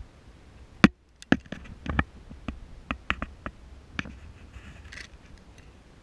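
Handling noise from camera gear being knocked and shifted: an irregular run of about a dozen sharp clicks and knocks, the loudest first, then a brief soft rustle near the end.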